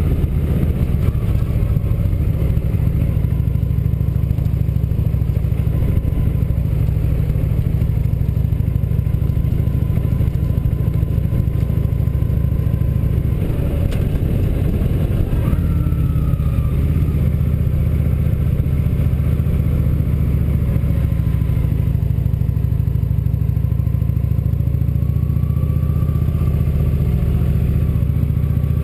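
Motorcycle engine running steadily while riding at road speed, its note dipping briefly about halfway through.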